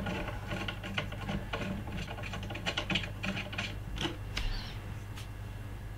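Small metallic clicks and rattles of hands working the aluminium extrusion frame and its bolt fittings on a CR-10S 3D printer, frequent for the first few seconds and thinning out later, over a low steady hum.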